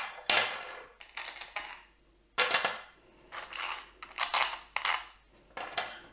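Metal busbar cell connectors and nuts clinking as they are lifted off the terminal studs of LiFePO4 prismatic battery cells and set down on a tabletop. Sharp metallic clinks with short ringing, irregularly spaced.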